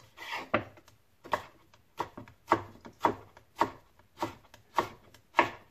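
Kitchen knife cutting firm unripe mango into thin strips, each stroke knocking on a wooden cutting board: about ten cuts in a steady rhythm, just under two a second.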